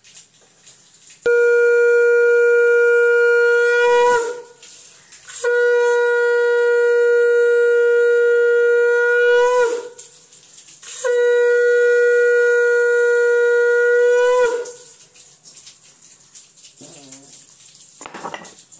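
Conch shell (shankha) blown in three long, loud blasts, each one steady held note that lifts slightly at its end. These are the customary three conch blasts of a Hindu puja.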